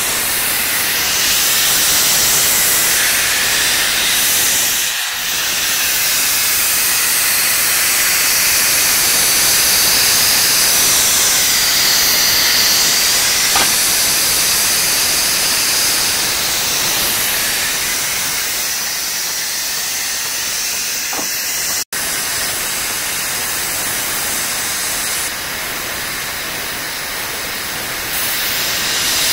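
Steady loud hiss of escaping steam from a 1927 A. B. Farquhar single-cylinder overtype steam engine and its boiler under steam, broken once by a split-second gap about three-quarters of the way through.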